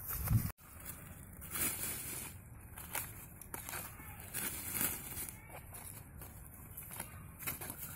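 Thin plastic bag crinkling and rustling in short, irregular bursts as handfuls of palmyra palm sprouts are put into it.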